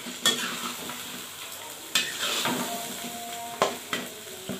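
Metal spatula stirring squid in black ink sauce in a wok, the squid sizzling and simmering in the liquid it has released. Three sharp scrapes of the spatula against the pan stand out over the steady sizzle.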